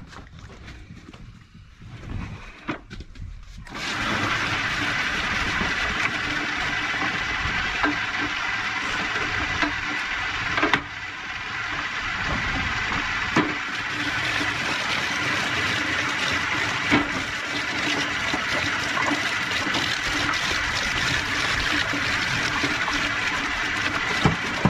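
Swede root chopper starting about four seconds in and running steadily, chopping swedes with a continuous dense grinding.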